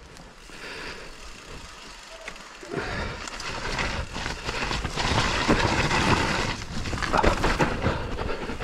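Santa Cruz Bronson mountain bike rolling along a dirt trail, its tyres running rough over the ground with many small knocks; fairly quiet at first, then much louder from about three seconds in as it picks up speed.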